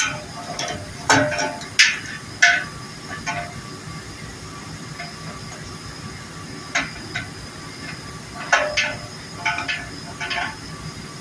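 Steel wrenches clinking and clanking on a gas-line fitting as it is tightened onto a liquid-nitrogen tank. Sharp metal knocks, each ringing briefly, come in two clusters, early and again after about seven seconds, over a steady background hum.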